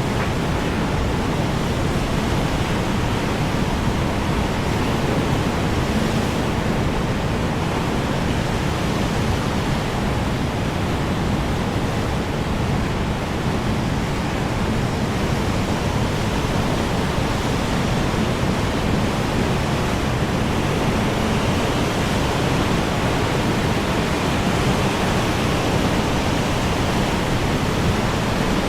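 Strong wind blowing as a steady, even rush without distinct gusts.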